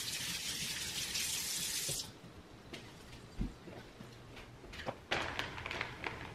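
Kitchen faucet running steadily as hands are washed, shut off abruptly about two seconds in. Near the end, a plastic zipper storage bag of brine is grabbed and handled, crinkling with a few sharp clicks.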